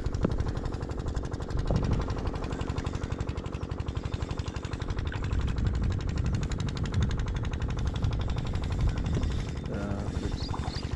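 Fishing reel being wound in while playing a hooked carp, giving a fast, even rattle of clicks, with wind rumbling on the microphone.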